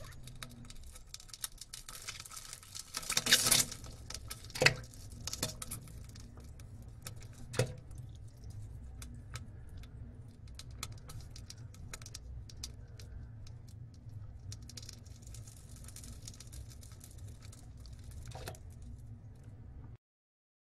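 Faint scattered clicks and taps over a low steady hum, with a few louder knocks about three, five and seven and a half seconds in; the sound cuts off just before the end.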